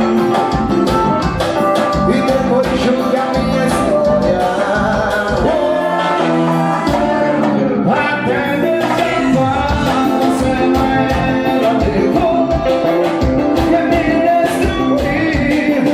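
Forró piseiro music with a steady dance beat and instrumental melody.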